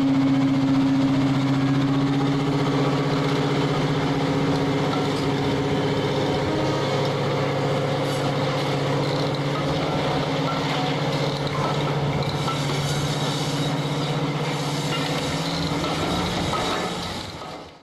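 Class 55 Deltic diesel locomotive's twin Napier Deltic engines running with a steady droning note as the train moves off, fading out near the end.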